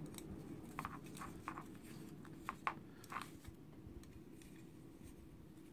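Faint scattered clicks and taps from hands handling a small carbon-fibre quadcopter frame as a velcro battery strap is threaded through it, about six in the first three seconds, over a low steady room hum.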